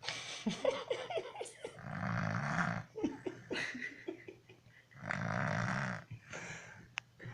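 Snoring, three long snores about three seconds apart, with faint short squeaks between them and a sharp click near the end.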